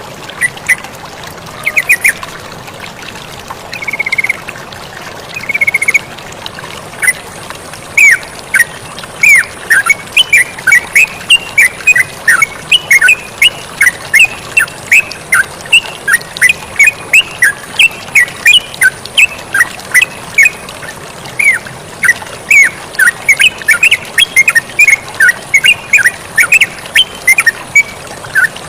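Yellow-vented bulbul (terucukan) singing: scattered notes at first, then from about seven seconds in a fast, continuous chatter of short, quick notes, over a steady bed of running water.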